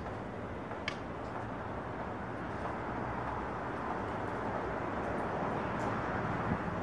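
Steady low rumble of distant road traffic, slowly growing louder, with a few faint sharp clicks from a spade digging into soil, the clearest about a second in.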